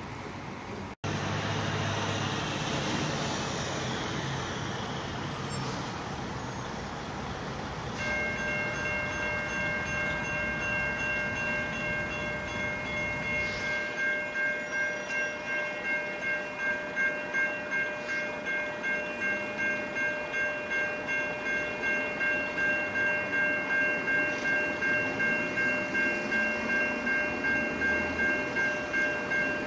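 Railway grade-crossing warning bell that starts about a quarter of the way in and rings on in a steady pulse, about once a second, signalling an approaching train. Near the end, the low rumble of that train builds in the distance.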